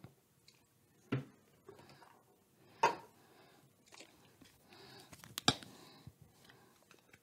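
Small objects being handled and knocked against a table: three sharp knocks, about a second in, near three seconds and at five and a half seconds, the last with a few quick clicks around it, with breathing in between.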